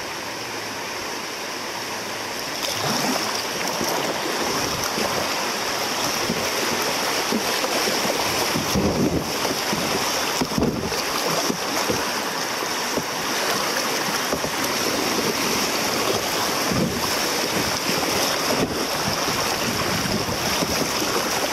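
Rushing, splashing water of a shallow river riffle around a kayak running the rapid, with wind on the microphone. It grows louder about two and a half seconds in, with a few low thumps along the way.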